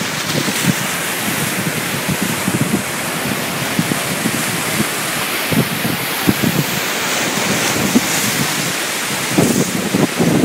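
Wind buffeting the microphone in irregular gusts over the steady wash of the sea.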